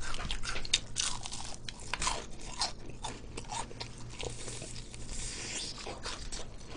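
Crispy fried chicken being bitten and chewed up close, with many irregular crunches of the breaded crust.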